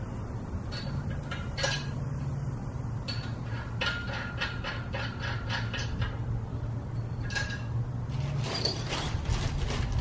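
Steel bolts, washers and nuts clinking and clicking as they are fitted and hand-tightened on a steel strongman yoke, with a quick run of even clicks about four seconds in. Near the end a plastic bag of hardware rustles. A steady low hum sits underneath.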